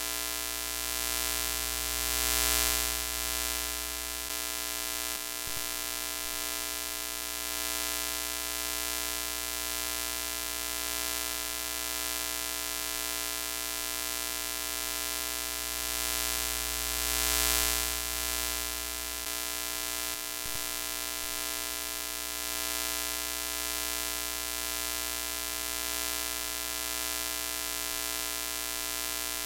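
Steady electrical buzz with hiss over it, the static sound effect of a broken TV screen. The hiss swells louder twice, a couple of seconds in and again past the middle.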